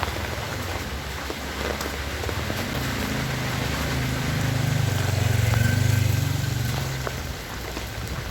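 Heavy rain falling steadily, with a vehicle engine passing close by: its low hum builds, is loudest about five to six seconds in, and fades away.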